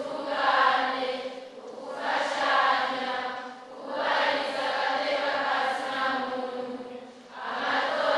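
A large crowd of young people chanting a spoken answer in unison, in four phrases of about two seconds with short breaks between them.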